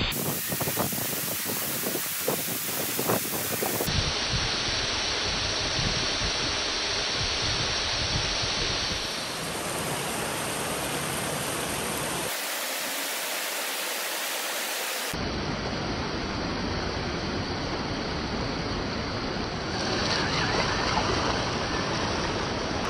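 Steady rushing of a waterfall, its tone changing abruptly a few times from shot to shot.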